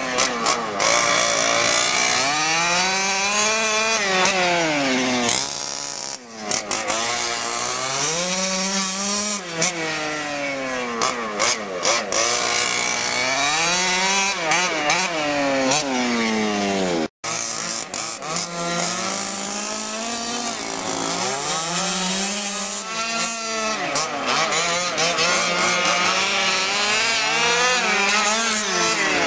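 1/5-scale HPI Baja RC truck's small two-stroke gas engine running hard, its revs climbing and dropping off again every few seconds as it laps. The sound cuts out for an instant about two-thirds of the way through.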